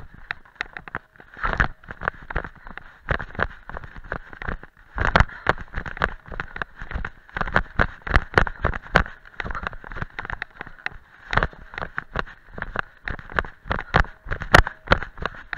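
A trail runner's quick, irregular footfalls thudding and crunching on a steep dirt and stone path during a fast downhill run, picked up by a chest-harness camera that jolts with each stride.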